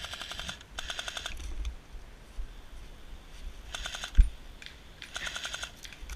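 Airsoft rifles firing short full-auto bursts of rapid clicking pops, four bursts in all. A sharp low thump a little past the middle is the loudest sound.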